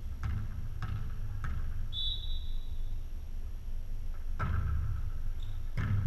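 A volleyball bounced three times on a gym floor, a short high squeak, then two hard hits of the ball about a second and a half apart, the serve and the pass, over a steady low hum in the gymnasium.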